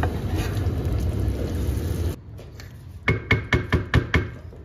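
Sauce sizzling and bubbling in a frying pan as it is stirred with a wooden spoon, cut off abruptly about two seconds in. Then a quick run of about seven sharp knocks with a slight ring: the wooden spoon tapped against the pan.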